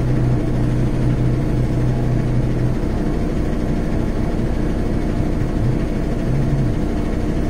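Semi-truck engine idling steadily, heard from inside the cab; its low hum eases a little about three seconds in.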